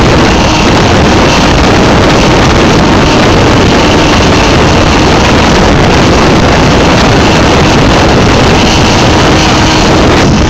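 Mariner outboard motor running steadily at speed as the boat planes, with rushing water and wind noise on the microphone mixed in.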